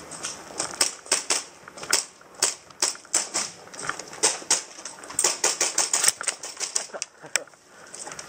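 Airsoft gunfire during a skirmish: many sharp, irregular snapping clicks in quick clusters, the shots and BB hits rattling around the wooden barricades.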